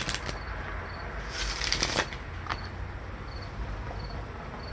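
A deck of oracle cards being shuffled by hand. There are a few quick card clicks at the start, then a dense flurry of card flicks about a second and a half in, and one more click shortly after.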